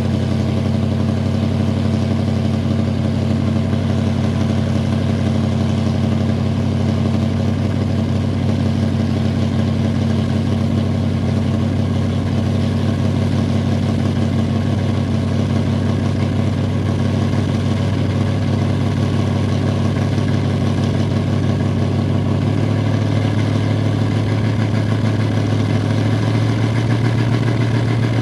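1971 Pontiac Bonneville's original 455 V8, a two-barrel with single exhaust, running at a steady idle while warming up from a cold start without a choke, heard at the tailpipe. About three-quarters of the way through, the idle note steps up a little.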